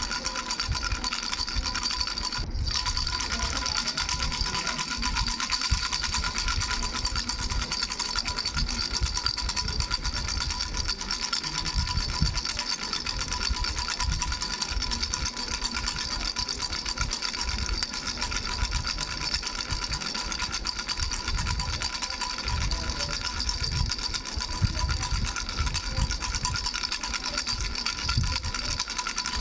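Baby rattle with three small bells shaken rapidly and without pause: a dense, steady jingle with the bells ringing on several clear tones, over soft irregular low knocks.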